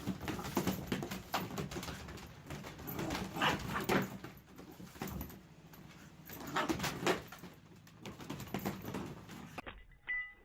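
A dog making repeated vocal sounds in bursts, loudest about half a second, three and a half seconds and seven seconds in.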